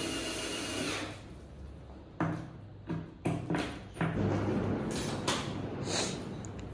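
Cordless drill driving the screws that fasten the tilt mechanism plate to an office chair seat, run in several short trigger bursts and then one longer run.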